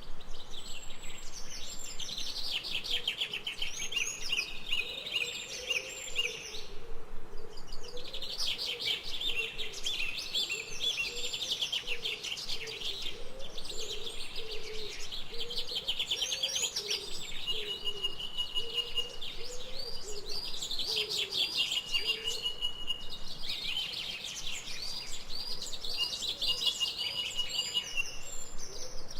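A dense chorus of several birds chirping and singing over one another: fast runs of high notes, a repeated hooked note, and a thin high held tone that comes in several times in the second half. A lower wavering call runs beneath.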